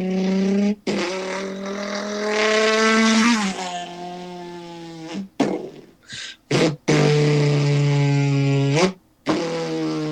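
A person imitating a car engine with his voice: long buzzing engine notes that climb in pitch as if accelerating, then drop and climb again, mimicking gear changes, broken by a few short gaps.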